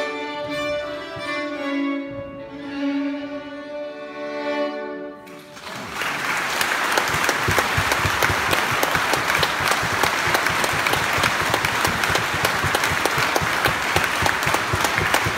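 Fiddles and a nyckelharpa play the last bars of a traditional Swedish bridal march, ending on a held chord about five seconds in. An audience then breaks into steady, loud applause.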